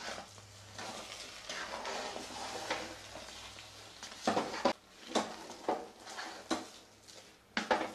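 Wooden spatula stirring and turning thick semolina upma in a pan: soft scraping and mashing, with a run of sharper scrapes from about four seconds in.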